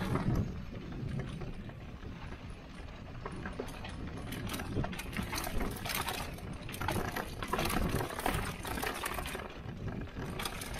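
Mountain bike descending a loose, dusty dirt trail: knobby tyres crunching and skidding over dirt and ruts, with a constant clatter of the bike rattling over bumps.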